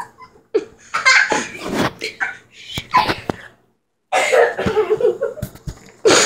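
A person laughing in short, breathy bursts. The sound drops to dead silence for a moment a little over halfway, then the laughter resumes.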